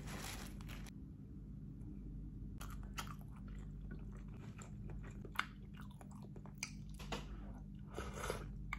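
A person chewing and eating fried noodles and congee, quiet mouth sounds with scattered soft clicks from chopsticks and a plastic spoon, over a steady low room hum.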